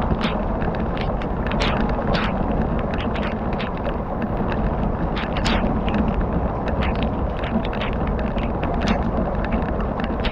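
Campfire crackling: a steady rushing noise with irregular sharp pops and snaps, a few each second.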